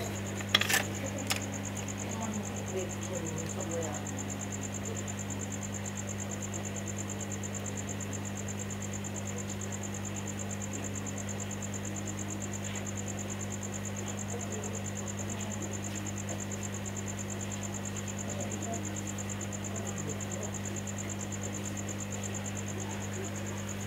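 Hot air rework station running over a laptop motherboard to desolder a MOSFET, a steady low hum with a steady high pulsing whine above it. A few sharp clicks come about a second in.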